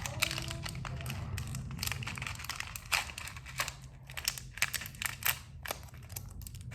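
Irregular crinkling and small sharp clicks of plastic as decorating beads and their packaging are handled and tipped onto slime.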